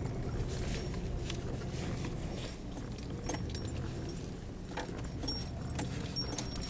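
Car engine running low and steady at slow crawling speed over a rough grass track, heard from inside the cabin, with scattered clicks and rattles of loose things in the cabin as the car jolts over the ruts.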